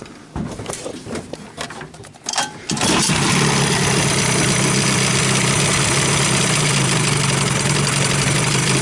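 Johnson/Evinrude deflector-scavenged two-stroke outboard motor starting. A few clicks and knocks come first, then the engine catches suddenly about three seconds in and settles into a steady idle.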